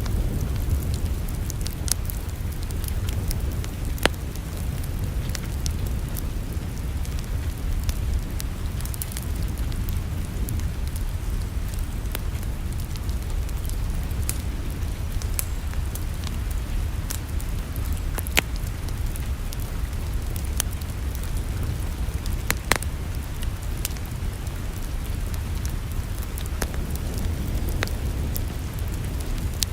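Wood fire in a fireplace crackling, with irregular small pops and a few sharper snaps over a steady low rumble.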